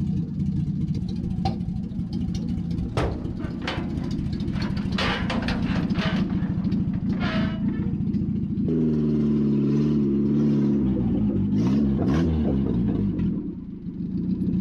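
1979 Chevrolet LUV 4x4's four-cylinder engine running as the truck is driven, with many sharp clatters and knocks over the first several seconds. About nine seconds in, the engine note comes through clearly, its revs rising and falling for a few seconds.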